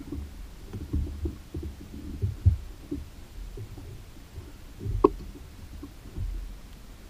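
Dull, irregular thumps and knocks from a fish being handled on a measuring board on a carpeted boat deck, with one sharper knock about five seconds in.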